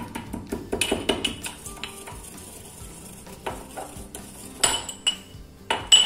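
Small steel mortar and pestle pounding roasted cumin seeds coarse: a run of quick metal taps, a quieter stretch, then two louder ringing clanks near the end.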